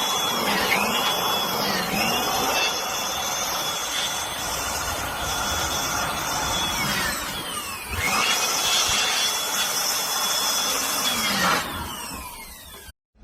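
Small high-speed electric motor running with a loud rush of air, likely a tool cleaning dust out of the refrigerator. Its whine dips and recovers several times as the speed changes, then winds down near the end.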